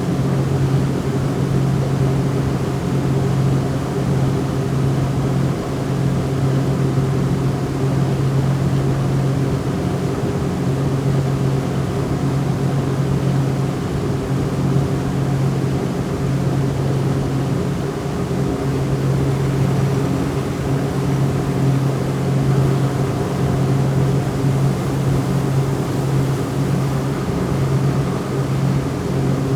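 Motorboat engine running at a steady speed, a constant low drone with no change in pitch.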